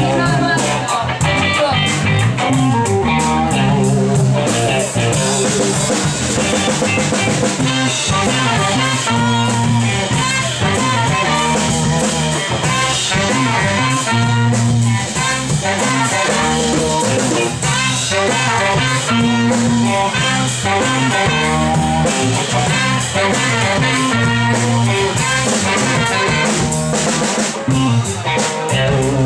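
A live band playing a song, drums and guitar over a steady beat.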